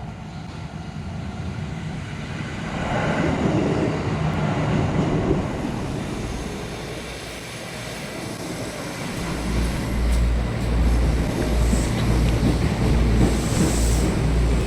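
Electric commuter train running on the rails. Its rumble swells a few seconds in, then turns into a heavy, low, rhythmic pounding from about nine seconds, with short high hisses near the end.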